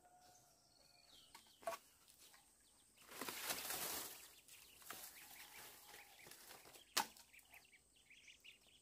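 Dry palm fronds rustling as they are moved on a small bamboo duckling pen, then a single sharp knock of bamboo near the end, with faint peeping of ducklings in between.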